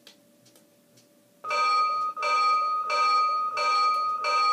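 Toy CSX 8960 diesel locomotive's bell sound effect ringing: five evenly spaced dings about 0.7 s apart, starting about a second and a half in.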